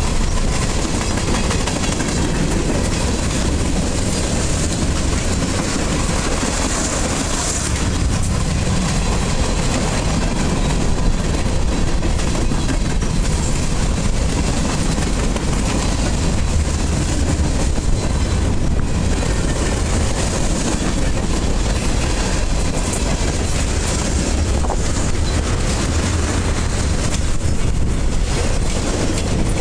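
Freight cars of a long train rolling past close by: a steady, loud noise of steel wheels running on the rails.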